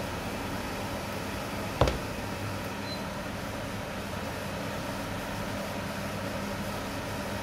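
Steady hiss with a low hum as beaten eggs cook in a non-stick frying pan on an induction cooktop. A single sharp knock sounds about two seconds in.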